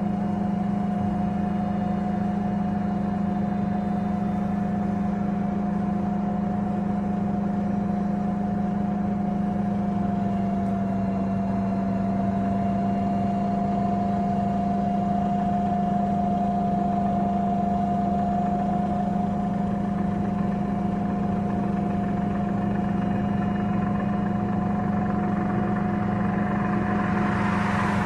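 Iveco Cursor 8 straight-six CNG engine of a Solaris Urbino 12 city bus idling steadily, heard from inside the passenger cabin as an even hum. A brief rush of hissing noise rises near the end.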